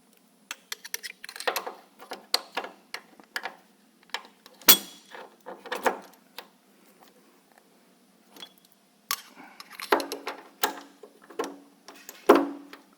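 Hard parts clicking, clinking and knocking at an irregular pace as a saddle assembly is lined up by its holes and fitted together by hand. Two sharper knocks stand out, about a third of the way in and near the end.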